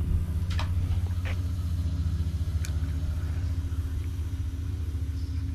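Steady low mechanical hum, an engine- or machine-like drone that holds level throughout, with a few faint ticks in its first three seconds.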